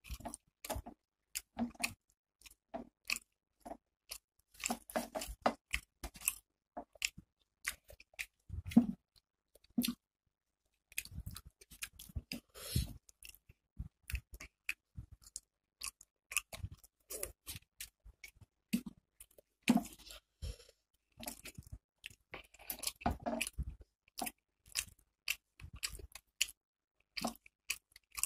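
Close-miked chewing of rice and curry eaten by hand: irregular wet mouth clicks and smacks, with a short pause about ten seconds in.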